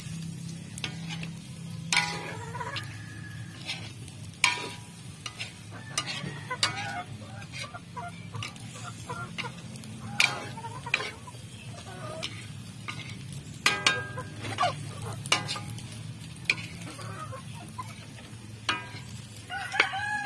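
A spatula repeatedly scraping and clanking against a steel wok as chopped pork is stirred and fried over a wood fire, with the meat sizzling. Chickens cluck now and then.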